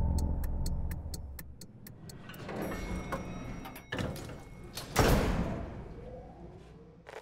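Lift sound effects: a low mechanical rumble with even ticking, about four a second, fades out in the first second or so. Then the lift doors slide, with a sharp start about four seconds in and the loudest sound, a sudden rush of noise, about five seconds in.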